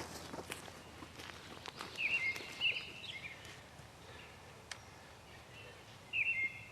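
Footsteps and rustling, each step a short sharp click. A songbird sings two short warbled phrases, about two seconds in and again near the end.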